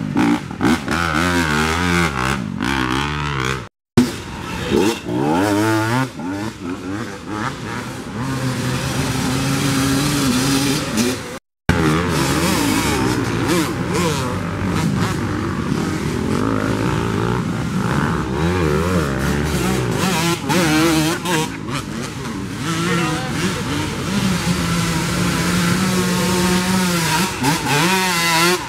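Several off-road dirt bike engines revving hard, rising and falling in pitch, as the bikes struggle up a steep dirt hill. The sound cuts out suddenly twice, briefly, about a seventh of the way in and again near the middle.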